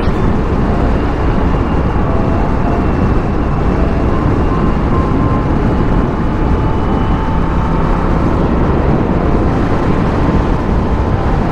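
Indian FTR 1200's V-twin engine running steadily under way, mixed with heavy wind rush on the handlebar-mounted camera's microphone.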